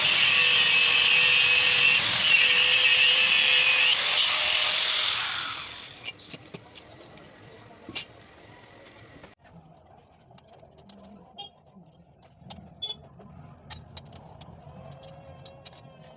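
A power tool running loudly on iron for about five and a half seconds, then winding down. It is followed by scattered light metallic clicks and taps.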